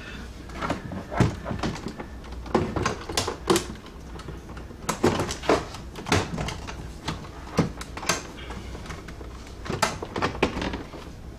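Plastic center console of a 2006 Ford Mustang being worked loose by hand and lifted out: an irregular run of clicks, knocks and plastic rattles as its clips give.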